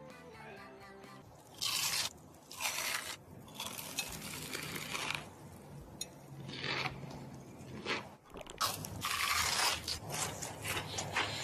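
Crunchy food being bitten and chewed close to the microphone: a series of loud, uneven crunches.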